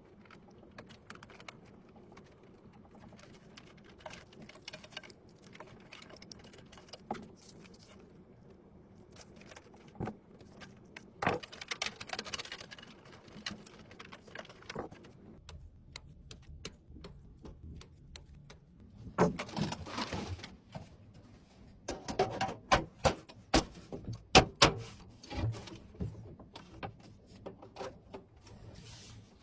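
Scattered clicks, taps and light rattles of computer hardware being handled and fitted into a PC case, coming in small clusters with quiet gaps between.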